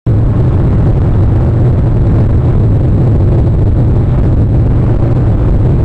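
Steady, loud, low rumble of wind buffeting an outdoor webcam microphone, mixed with the wash of a rough sea, with no distinct events.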